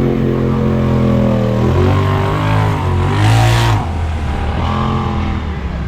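Side-by-side UTV engine revving up and down in the mud, its pitch rising and falling repeatedly, with a short rush of noise a little past halfway through.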